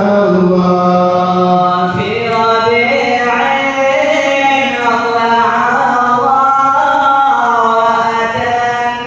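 A man's voice singing a qasidah solo through a handheld microphone, in long, drawn-out notes that bend and wind in pitch.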